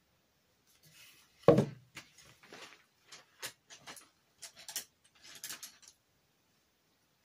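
A single solid thump about one and a half seconds in as something is set down on a tabletop, then a run of light clicks and knocks for about four seconds as painting things are handled on the table.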